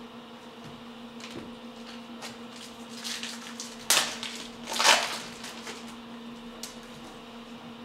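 Trading-card packs and cards being handled, with two loud crinkling rustles about four and five seconds in, typical of a foil card pack being torn open, over a steady low hum.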